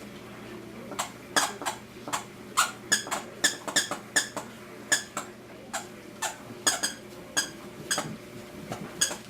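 A rapid, irregular string of short, high-pitched squeaks from long-haired Chihuahua puppies at play, about two or three a second, starting about a second in.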